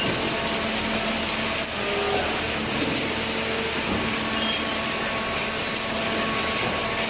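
Automatic baler for plastic and cardboard running: steady, dense mechanical noise with a faint steady hum under it.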